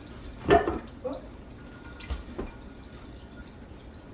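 A spirit level and wooden shelf board being handled against the wall: a few short knocks and clatters, the loudest about half a second in.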